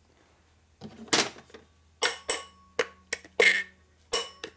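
Soft-faced mallet tapping the end frame of a Harley-Davidson 65A 12-volt generator onto its housing. It gives about eight sharp knocks, about two a second, starting about a second in, each with a short metallic ring. The end frame went on tight instead of falling into place.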